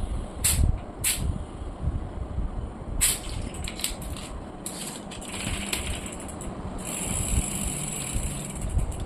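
Bicycle parts and tools being handled during a rear-wheel change: a few sharp metallic clicks and clinks, then a longer stretch of rattling and scraping.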